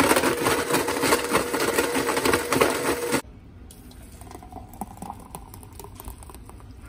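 Blendtec Total Blender motor running steadily, whirring a shake of almond milk and ice, then cutting off suddenly about three seconds in. After that comes the faint sound of the thick shake being poured from the jar into a cup.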